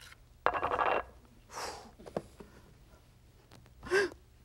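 Kitchen handling noises around a bamboo steamer on the stove: a short scrape about half a second in, a brief hiss, and a click, then a short breathy exhale near the end.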